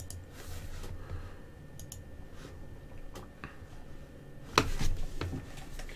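Scattered clicks and taps from a computer mouse and keyboard, with a louder cluster of knocks about four and a half seconds in.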